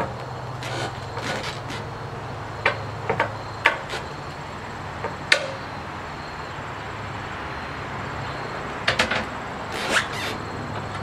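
Metal cant hook knocking and clanking against a log and the steel bed of a bandsaw sawmill as the log is levered and turned: about nine sharp knocks, several in quick pairs, the loudest about five seconds in. A steady low hum runs underneath.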